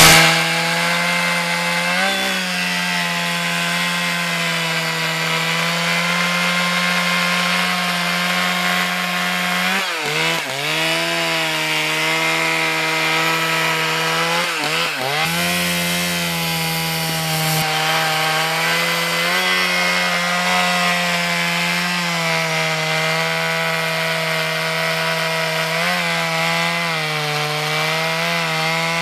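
Dolpima PS-180 two-stroke chainsaw running under load as it cuts into a poplar log. The engine note holds steady, with a few brief dips in pitch as the chain bites and then recovers.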